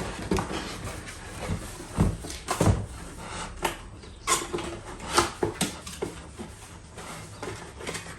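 Irregular knocks, clicks and rustles of a mower's parts and packaging being handled and taken out of the box, with a few sharper thumps about two, four and five seconds in.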